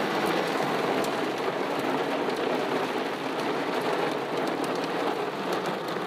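Heavy rain with small hail beating on a car, heard from inside the car: a steady dense hiss with scattered sharp ticks from the ice pellets.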